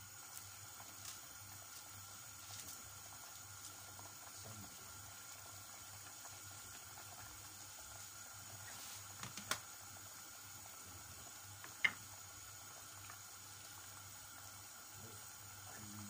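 Noodle broth simmering in a wide pan, a faint steady bubbling. Two sharp knocks a couple of seconds apart past the middle, the second the louder.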